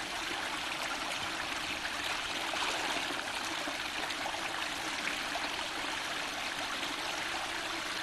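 Spring-fed forest stream flowing steadily over rocks, with a trickle of water poured from a plastic scoop into a plastic canister.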